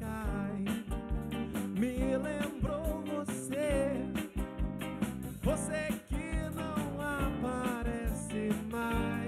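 A live band plays a song on drum kit, electric bass and guitars, with a steady beat and a bending melody line over the chords.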